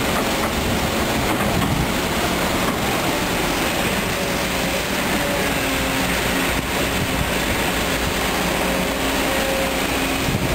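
Kobelco SK200 hydraulic excavator's diesel engine running steadily under load as it digs and loads, its pitch rising and falling a little as the hydraulics work.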